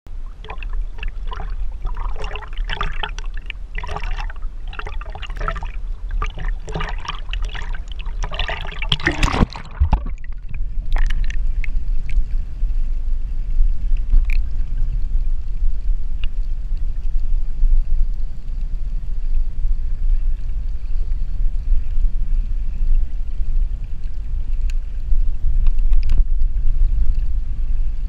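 Water sloshing and splashing against a GoPro housing at the sea surface. About nine and a half seconds in the camera goes under, and the sound changes to a steady, muffled underwater rumble with a few faint clicks.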